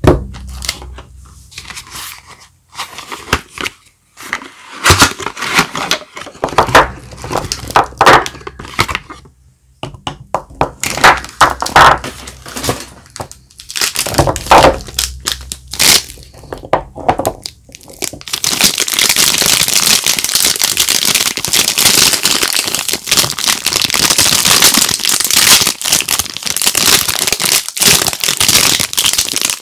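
Soap bars being unwrapped by hand: the wrapping crinkles, crackles and tears in irregular handlings. About two-thirds of the way through it turns into a steady, dense crinkling of the wrapper.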